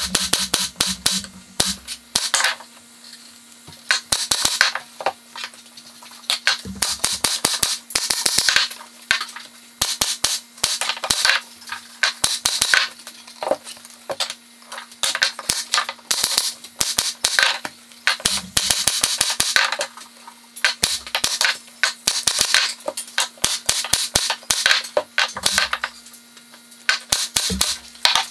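Pneumatic stapler firing staples through a fabric strip into plywood: quick runs of sharp clacks, with pauses of a second or two between runs.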